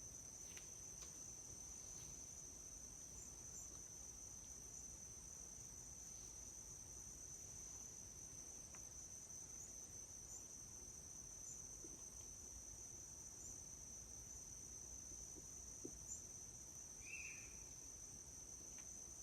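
A faint, steady, high-pitched insect chorus trilling without a break, with a brief faint call near the end.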